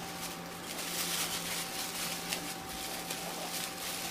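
Thin plastic wrapping around a cup crinkling and rustling as it is handled, a dense run of small crackles.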